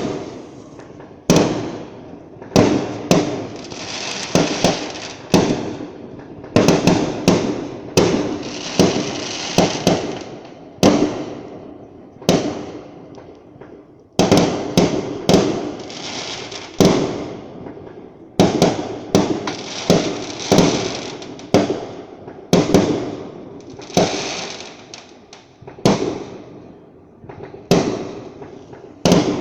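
Fireworks going off in a steady barrage: sharp bangs every second or two, each followed by a noisy trail that fades over a second or two, with a couple of short lulls.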